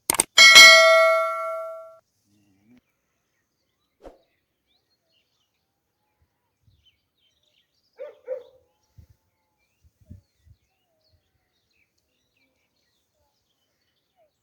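A metal object struck a few times in quick succession, the last strike ringing out in a clear, many-toned clang that dies away over about a second and a half. A few faint knocks follow later.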